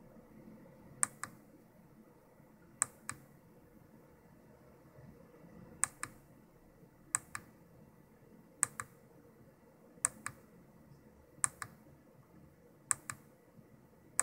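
Small push-button switch pressed eight times, each press and release giving a quick double click. The presses step the 65C02's 555 single-shot clock pulse one tick at a time.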